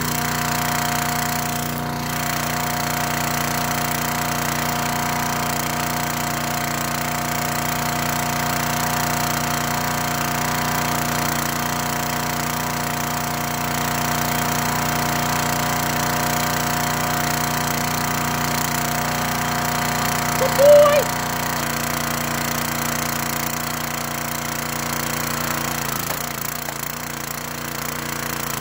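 Small gasoline engine of a hydraulic log splitter running steadily. About two-thirds of the way through there is one short, high squeak, and the engine's tone shifts a couple of seconds before the end.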